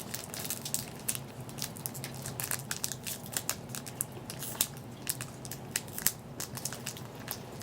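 Plastic trading-card wrappers and packaging crinkling and crackling as they are handled, in a dense run of irregular crackles.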